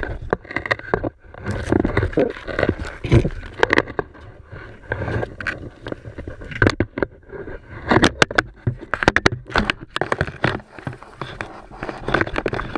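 Irregular knocks, thumps and scrapes against the hollow plastic hull of a kayak, heard from inside the hatch.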